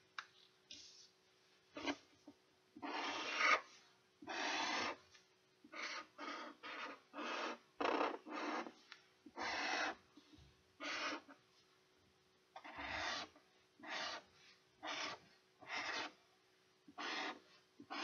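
Pen drawing on paper: a string of short scratchy strokes, each under a second, at irregular intervals, over a faint steady hum.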